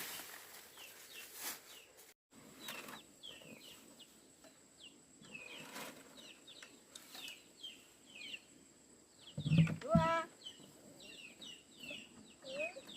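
Chickens calling: a run of short, high, falling chirps, several a second, with one louder call just under ten seconds in.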